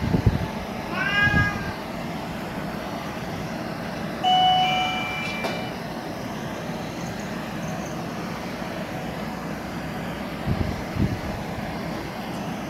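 Kitten giving a short, high mew about a second in, over a steady background hum. Around four seconds in a flat, held tone sounds for just over a second, and a few low thumps come near the start and again later.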